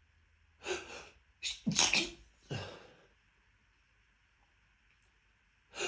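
A sneezing fit set off by dust: a quick run of sharp sneezes in the first three seconds, then another sneeze just before the end.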